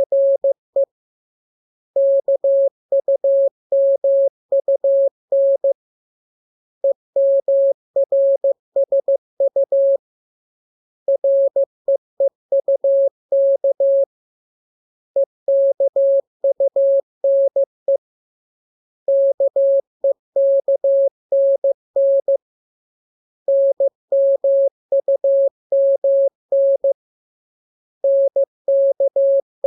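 Morse code practice signal: one steady beep keyed on and off in dots and dashes. It is sent in runs of letters about three to four seconds long, with pauses of about a second between them. This is the receiving-practice text for the letters K, M, U, R, E, S and N.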